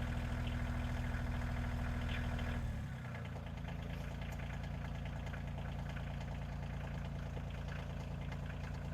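Engine of the machine handling the sawmill parts running steadily at raised revs, then throttled down about three seconds in and idling lower and steadily.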